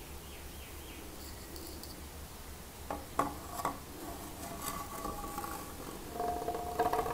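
A basalt rock sample being put into a water-filled graduated cylinder: a few sharp knocks about three seconds in, then splashing and ringing, bubbling water sounds, busiest near the end, over a low steady hum.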